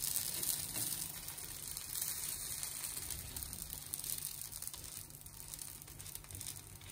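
Thin dosa batter sizzling on a hot tawa as the back of a ladle spreads it in circles: a crackling hiss that slowly fades.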